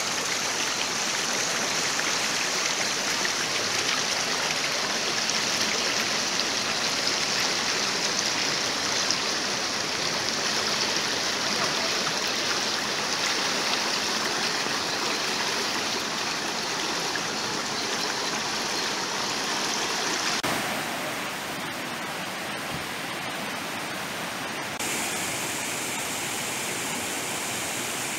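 The Munzur River, a fast mountain river, rushing over rocks as a steady hiss of white water. Its tone shifts slightly twice in the later part. Near the end it is water pouring down stepped stone cascades.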